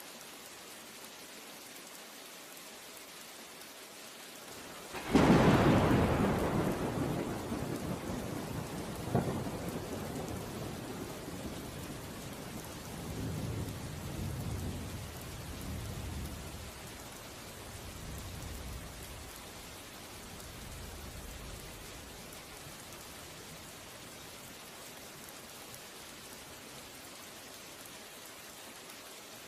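Thunderstorm: steady rain hiss, then about five seconds in a loud thunderclap cracks and rolls away in a long low rumble that fades over some fifteen seconds, with a second, sharper crack a few seconds after the first.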